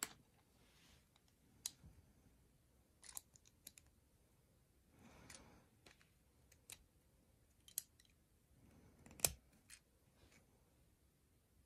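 Plastic Lego bricks clicking and tapping as pieces are handled and pressed together: scattered sharp clicks, the loudest about nine seconds in, with a soft rustle of handling around five seconds in.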